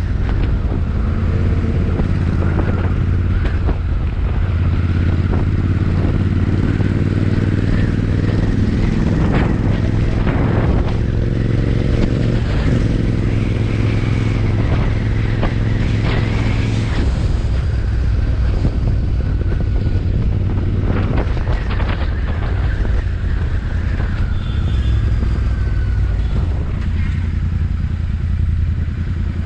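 Royal Enfield Interceptor 650's parallel-twin engine running, its exhaust rumbling loudly. The revs stay fairly steady, with a slow rise and fall in the middle.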